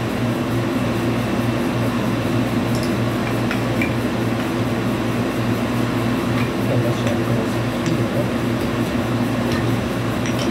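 Portable air conditioner running with a steady hum, and now and then the faint light clack of wooden toy train track pieces being handled and knocked together.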